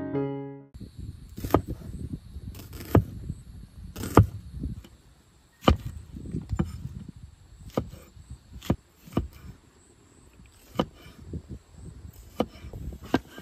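A piano piece cuts off just under a second in. After it come irregular sharp knocks and clicks, a dozen or more, spaced a fraction of a second to a couple of seconds apart, over a low rumble of wind on the microphone.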